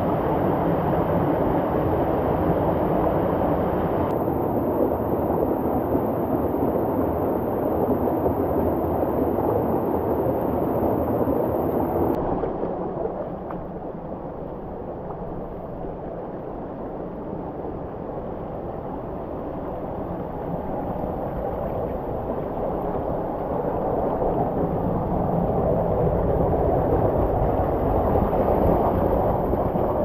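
Rushing river water, a steady noisy rush that drops away about twelve seconds in and swells back up near the end.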